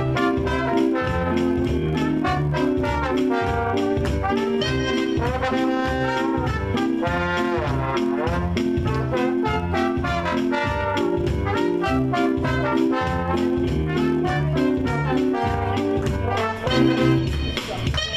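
Swing band playing live: a brass section carrying the tune over a steady, even beat from the rhythm section, with a brief swooping slide in pitch about eight seconds in.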